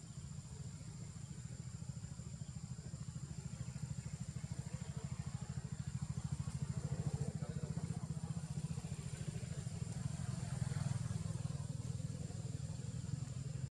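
A small engine running steadily, a low pulsing rumble that grows louder through the middle and eases a little near the end, with a faint steady high whine above it.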